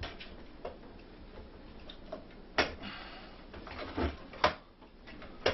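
A handful of sharp knocks and clicks as the stripped-down UPS case and its parts are handled, loudest about two and a half and four and a half seconds in.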